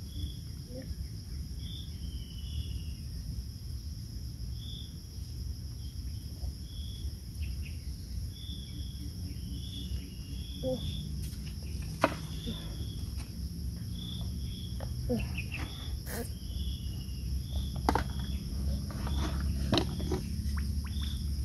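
Insects in a steady high-pitched chorus, with short chirps repeating about once a second over a low rumble. From about ten seconds in, scattered clicks and taps come and go.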